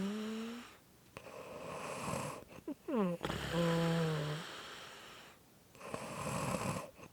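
Squeaky snoring: breathy, rasping breaths alternate with a pitched squeak. The squeak slides down and then holds a steady note, heard in full once about three seconds in, with the end of another just at the start.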